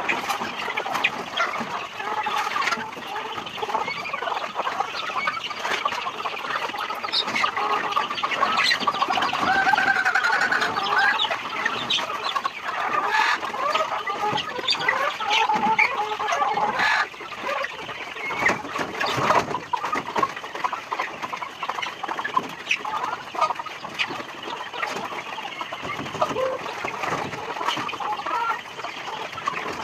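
A flock of chickens clucking and calling continuously, many birds overlapping, with scattered short clicks among the calls.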